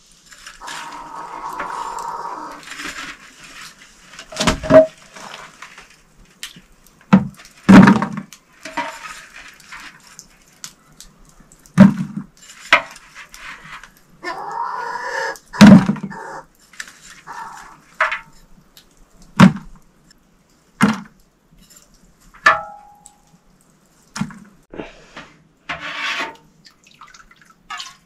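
Irregular sharp knocks a second to a few seconds apart, with stretches of scraping near the start and around the middle: kitchen utensils being handled and knocked.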